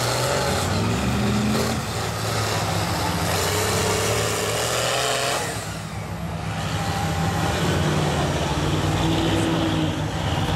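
Lifted mega truck's big engine running hard through a mud bog pit, revving under throttle. It eases off briefly about halfway through, then comes back up.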